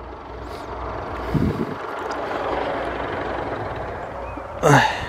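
Steady car cabin noise, a low engine and road rumble under an even hiss. A short voice sound comes near the end.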